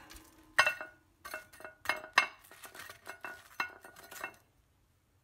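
Kitchenware clinking: about a dozen light, ringing clinks against a porcelain plate over some four seconds, stopping about four seconds in.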